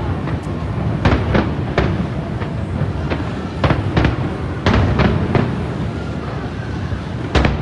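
Aerial firework shells bursting: about ten sharp booms at uneven intervals, the loudest near the end, over a continuous low rumble.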